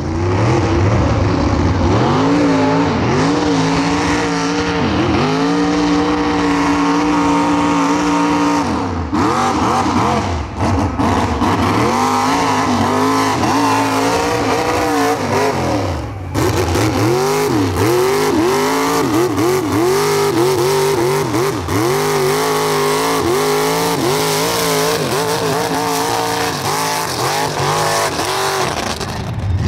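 Engines of lifted, big-tyred mud trucks revving hard as they power through a mud track. The pitch is held high for several seconds at first, then rises and falls again and again in quick swoops.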